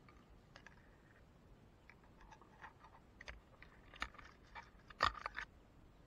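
A scatter of light, irregular clicks and taps that grows busier after about two seconds and is loudest about five seconds in.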